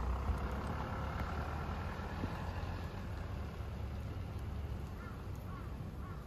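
Steady low rumble of distant traffic, with birds calling several times near the end.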